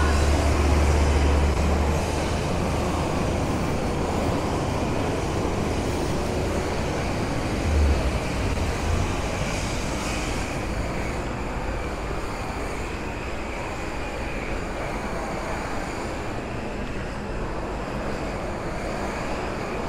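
City street traffic noise with a heavy vehicle rumbling past: a deep rumble at the start, a brief low thump about eight seconds in, then a steady wash of traffic that slowly fades.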